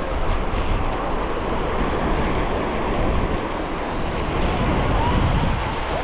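Small waves breaking and washing up the sand in a steady rush, with wind buffeting the microphone. A few faint, distant voices come through near the end.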